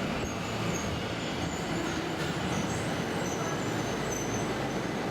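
Steady rumble of a moving vehicle.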